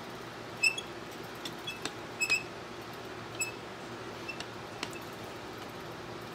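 Small steel model-engine parts clicking and clinking against each other and the stand as they are handled and fitted, a few light metallic ticks with a brief ring. The loudest comes about half a second in, with two close together a little after two seconds. A faint steady hum runs underneath.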